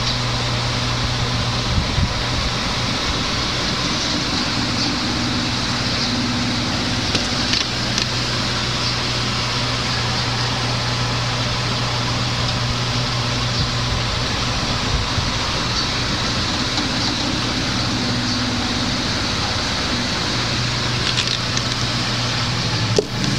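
Steady background hum and hiss with a constant low drone, and a few light clicks, with a sharper click near the end.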